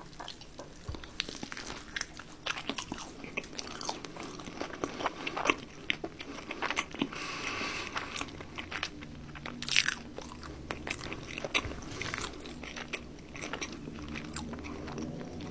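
Biting and chewing a KFC Double Down, the fried chicken breading crunching with many small crackles. The loudest crunches come about five and a half and ten seconds in.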